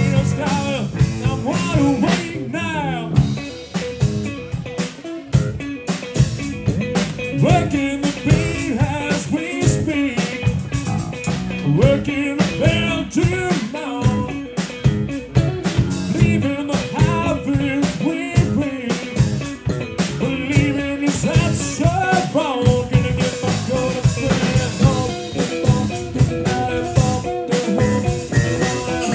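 Live rock band playing a funk-rock groove: two electric guitars, electric bass and a drum kit with a steady beat, with sliding guitar notes.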